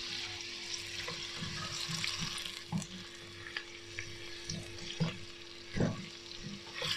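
Chopped red onion sizzling as it fries in melted butter and oil in a stainless steel pot, stirred with a wooden spoon. A few short knocks of the spoon against the pot come near the end.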